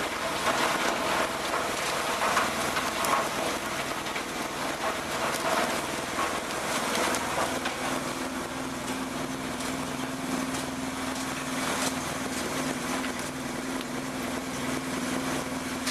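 Industrial wood crusher running steadily while shredding waste formwork boards, with scattered crackles of wood breaking over the machine noise. A steady hum comes up about halfway through.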